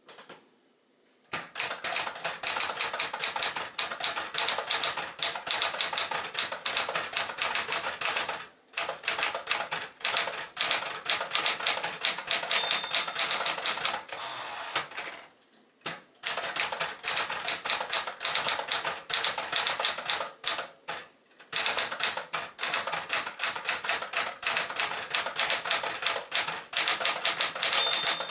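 1972 Penncrest Caravelle 10 manual typewriter, a rebadged Smith-Corona Galaxie, being typed on at speed: rapid runs of key strikes broken by a few short pauses, with a short high ring twice, near the middle and near the end.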